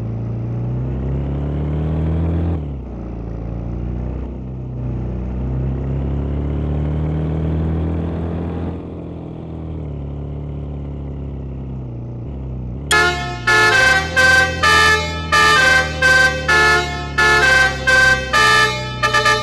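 A bus's diesel engine revving up through the gears, its pitch climbing, falling back about two and a half seconds in, then climbing again until near nine seconds. About two-thirds of the way through, a basuri telolet multi-tone horn cuts in suddenly, playing a quick tune of short, clipped notes.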